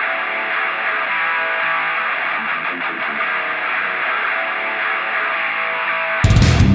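Rock music: a thin-sounding electric guitar intro, then the full band with drums comes in loudly near the end, in a heavy metal style.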